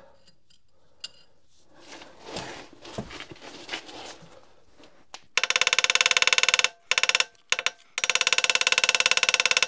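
Impact wrench hammering on a seized rear brake bolt: two bursts of rapid hammering, each about a second and a half long, with a short pause between, after a few seconds of faint handling noises.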